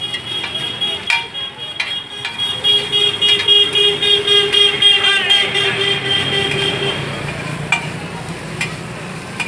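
Vehicle horns honking in the street, a pulsing horn joined by a long held one for several seconds, over traffic noise, with clicks of a metal spatula on a large flat iron griddle of frying chow mein.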